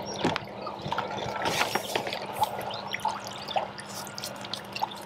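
Irregular splashing and dripping water as a hooked common carp thrashes at the surface close to the bank while it is brought to the landing net.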